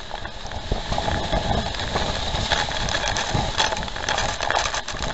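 Wind and heavy spray from Niagara Falls buffeting and pelting the microphone: a dense, gusting rush with deep rumbles and spattering water, a little louder from about a second in.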